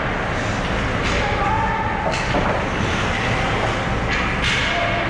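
Ice hockey game ambience in an arena: a steady rumble with scattered voices, and brief scraping sounds about two seconds in and again near the end, typical of skates cutting the ice.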